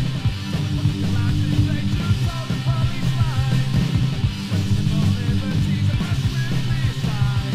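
Fast punk rock from a 7-inch vinyl record: dense, loud guitars and bass over rapid drumming.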